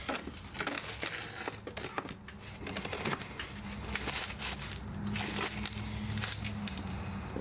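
Crinkling and rustling with scattered light clicks as hands work pepper seedlings, potting soil and their containers during repotting; a low steady hum comes in about halfway.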